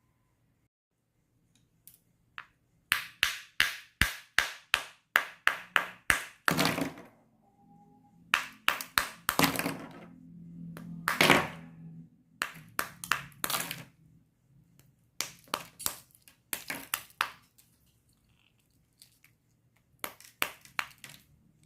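Ice being struck over and over to free frozen toy cars: runs of sharp knocks, about three to four a second, broken by short pauses.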